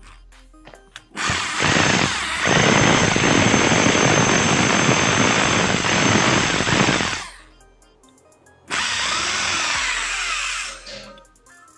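Freshly repaired 20 mm electric hammer drill run on test twice: first for about six seconds, starting about a second in, then for about two seconds near the end. It runs with a steady high whine. The bit now turns properly and the hammer action works, so the fault of the bit not rotating is cured.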